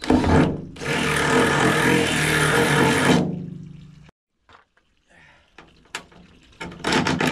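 Power drill boring a smaller pilot hole through the van's sheet-metal body. A short burst comes first, then about two seconds of steady drilling with the motor's hum, which dies away over about a second as the drill spins down. Another short burst comes near the end.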